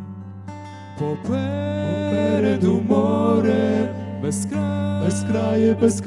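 Acoustic guitar playing a gospel song, with several voices coming in about a second in and singing together in harmony over it.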